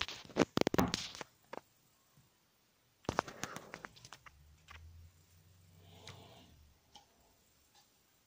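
Sharp clicks and knocks of a phone camera being handled and set in place, in a cluster at the start and again about three seconds in, followed by a faint low hum lasting a few seconds.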